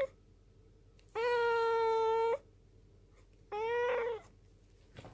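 A black cat meowing twice right at the microphone in a husky voice. The first is a long meow of over a second held at a steady pitch; the second is shorter and falls away at the end. These are the insistent begging meows of a hungry cat.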